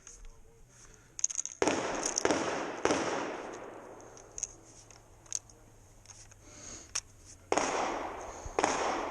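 Shotgun fired five times: three shots in quick succession, then after a pause of about four seconds two more, each with a long echoing tail.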